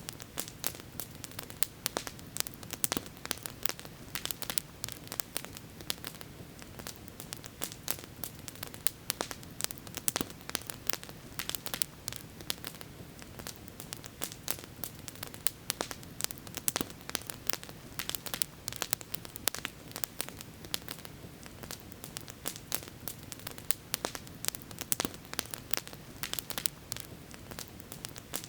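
Campfire burning with dense, irregular crackles and pops from the burning wood, over a steady low rush.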